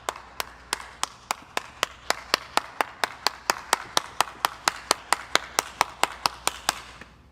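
Slow, steady clapping by one pair of hands, about four claps a second, over a faint hiss. It stops shortly before the end.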